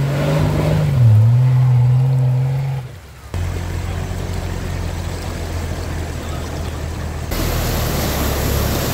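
Off-road 4x4 engine revving, its pitch climbing, dropping and climbing again, then after a brief drop-out settling to a lower steady run. A rushing hiss joins in about seven seconds in.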